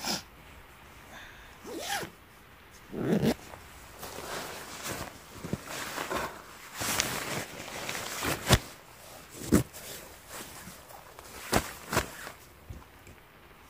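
A nylon tent is unpacked from its compression stuff sack: fabric rustles and straps are pulled through their buckles, with several sharp clicks.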